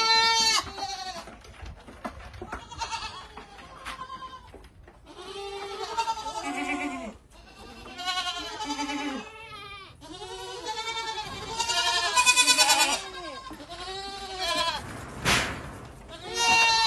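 A herd of Boer goats bleating again and again, many overlapping calls of different pitches, busiest through the middle and with another loud bleat near the end. A single sharp knock about fifteen seconds in.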